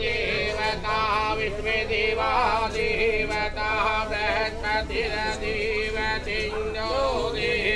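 A man chanting in a melodic sing-song voice, with wavering held notes, over a low steady hum.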